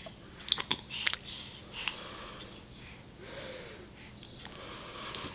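A baby's short, breathy sniffs and huffs, with a few sharp clicks in the first second and a brief soft vocal sound about midway.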